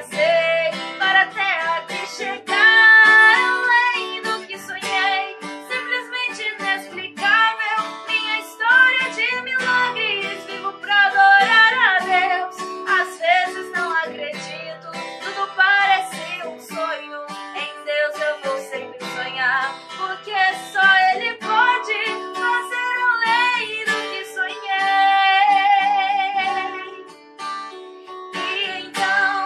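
Background music: a sung song with acoustic guitar accompaniment.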